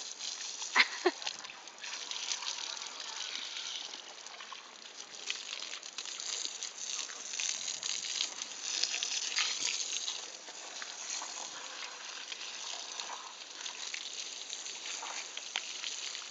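Water from a garden hose spraying onto a baby elephant and splattering on the muddy ground: a steady hiss full of small crackling splashes. Two sharp knocks stand out about a second in.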